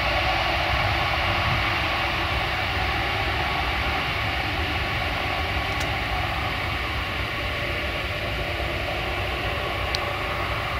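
Antonov An-124-100M's four Progress D-18T turbofan engines running as the freighter rolls out on the runway after touchdown: a steady jet rush that slowly fades.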